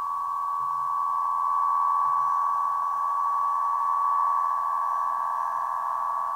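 Strings of a 104-inch Aeolian wind harp sounding in the wind: several steady, high tones close together, swelling louder through the middle and easing off toward the end.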